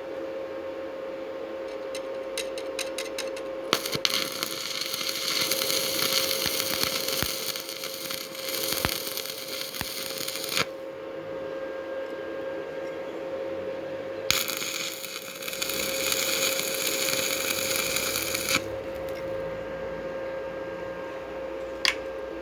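Steady machine hum with a single tone, broken twice by several seconds of harsh, high hissing tool noise, with a run of quick clicks before the first and a few sharp knocks.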